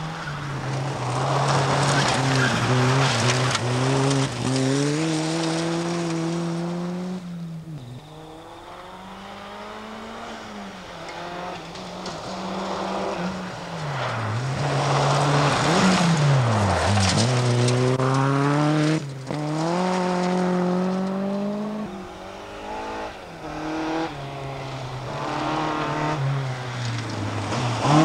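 Rally cars coming through one after another on a gravel stage, their engines revving hard. Engine pitch climbs and falls back repeatedly as the drivers change gear and lift off, with the hiss of tyres and gravel under it.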